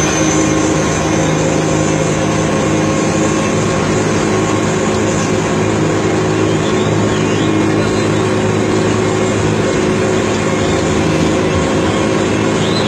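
Bus engine running steadily at an even pitch, with continuous road noise.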